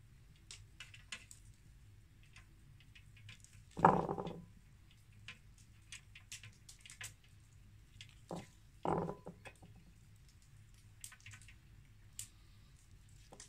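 Marinated chicken drumsticks being handled and pushed onto a wire skewer rack: soft wet squishing and small clicks of the metal. Two louder, longer handling sounds come about four and nine seconds in.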